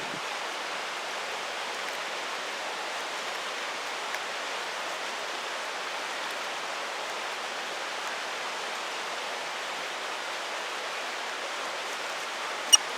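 Mountain stream rushing steadily over rocks, with one sharp click near the end.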